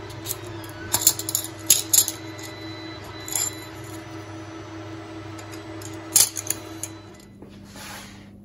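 Aluminium capacitor plates and tube spacers clinking against each other and the threaded bar as they are stacked by hand: a cluster of sharp metallic clicks in the first two seconds, another about three and a half seconds in, and a last few about six seconds in, over a steady low hum.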